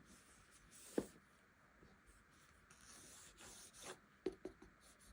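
Quiet handling of a smartphone's retail box during unboxing: packaging rubbing and sliding, with one sharp tap about a second in and a few light taps near the end.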